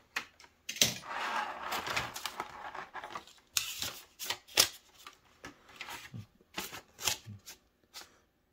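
Plastic packaging being handled by hand: a clear plastic cover and a moulded plastic tray crackling and clicking as a diecast model truck is unpacked, with a stretch of rustling about a second in and sharp crinkles near the middle.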